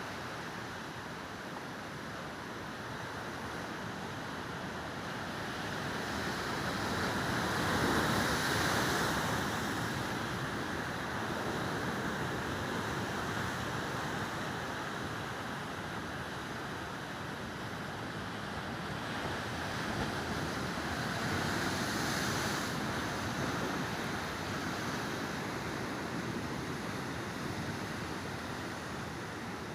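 Ocean surf: a steady rush of waves breaking and washing on the shore, swelling louder about 8 seconds in and again about 22 seconds in as larger waves break.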